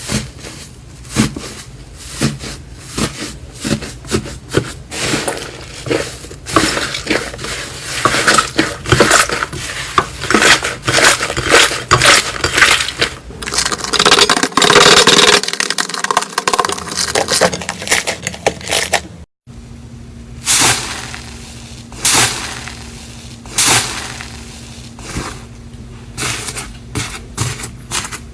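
Slime being pressed and squished, giving a fast run of crackling clicks and pops that is densest and loudest around the middle. After a brief drop to silence about two-thirds of the way through, the pops are sparser.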